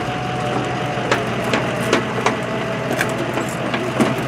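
Flatbed tow truck's winch dragging a crashed car up the steel bed by a chain: a steady mechanical hum and whine, with scattered sharp clicks and cracks as the chain and the broken bodywork scrape and shift.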